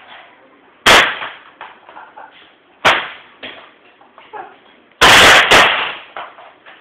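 A laptop being smashed: two sharp cracking impacts about two seconds apart, then a longer, loudest crash about five seconds in as it breaks apart on the floor.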